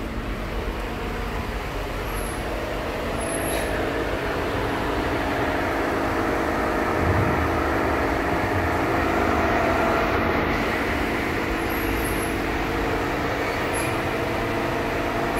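Mercedes-Benz GL500's V8 engine idling steadily, a continuous hum with a few steady tones and no changes in speed.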